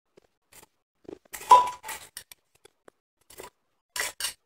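Snowy crushed ice crunching as it is chewed, with a metal spoon clinking and scraping in a stainless steel cup. Scattered short crunches, the loudest about a second and a half in with a brief metallic ring.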